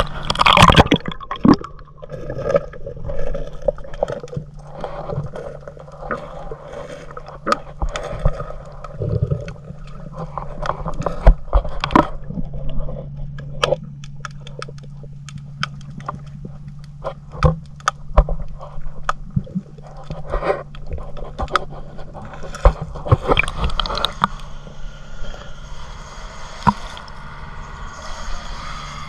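Water sloshing and gurgling around an action camera dipped in and out of the water, starting with a splash, with many sharp knocks and clicks as it bumps about. Under it runs a steady low engine hum.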